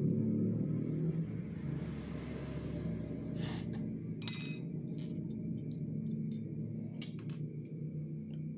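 Small metal sewing-machine parts clinking and tapping as they are handled and set down: a few sharp clinks, the loudest with a brief ring about four seconds in, over a steady low hum.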